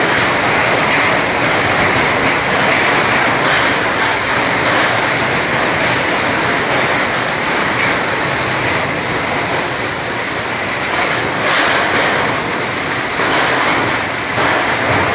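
Overloaded goods train running through the station under the platform shed, a loud steady noise with a few louder surges near the end, as its load breaks up the shed's roof.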